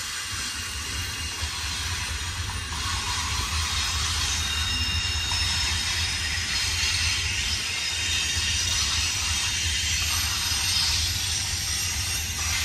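Long freight train rolling past, a steady rush of railcar wheels on the rails over a low rumble, with faint thin high squeals now and then.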